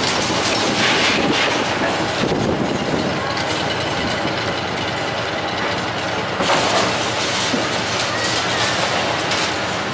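Wrecking-ball demolition of concrete silos: a steady rattling, clanking noise of the crane at work, with louder crashes of breaking and falling concrete about a second in, around two and a half seconds, near six and a half seconds, and near the end.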